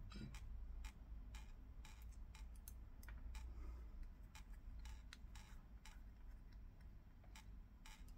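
Faint, irregular small clicks and taps of the plastic front cover and small parts being handled and fitted onto a Sennheiser body-pack transmitter, over a low background hum.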